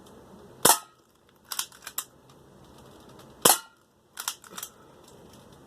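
A 1911-style BB pistol firing two shots, about three seconds apart, each a single sharp crack. About a second after each shot come two lighter sharp clicks.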